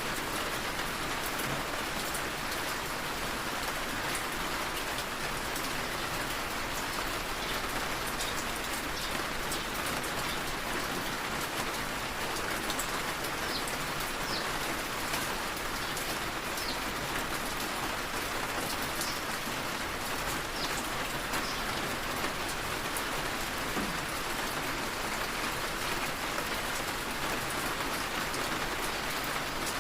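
Steady rain falling on a surface, a constant hiss with many small drop ticks scattered through it.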